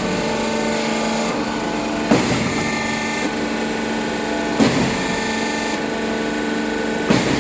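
Concrete pump running in normal pumping: a steady hum from its power unit and hydraulics, with a knock about every two and a half seconds, three in all, as the pumping cylinders change stroke.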